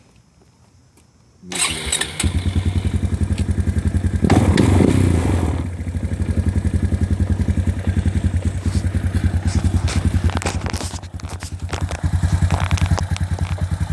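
Suzuki QuadSport Z250's single-cylinder four-stroke engine starting about a second and a half in, revving up briefly, then idling with an even pulse and a short dip in speed near the end. This is its first run after an oil change, to get the fresh oil around the engine.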